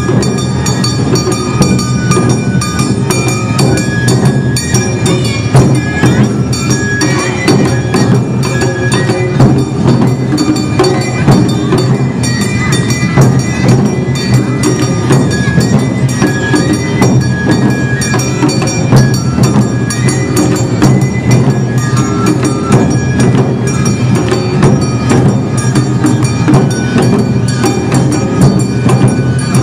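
Awa Odori festival music: drums and a clanging hand bell beating a quick, steady rhythm, with short flute-like melodic tones and ringing held tones above.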